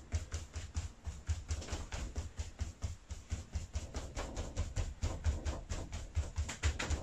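Quick repeated softening strokes over wet glaze on a painted board, several a second, each a short swish with a dull knock.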